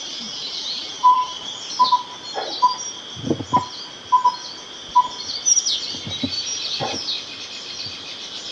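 Birdsong: high, thin song phrases, among them a Chinese leaf warbler's, over a steady high-pitched drone. A louder, lower short whistle from another bird repeats about once a second through the first five seconds, and there are a few soft low thumps.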